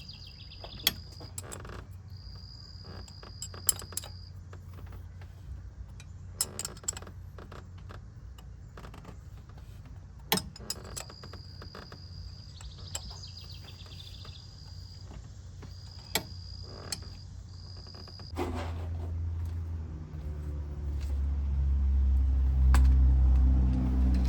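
Scattered metal clicks and clinks of a 12 mm wrench or socket working on the water pump pulley bolt, with crickets chirping on and off. About three-quarters through, a low droning hum starts and grows louder.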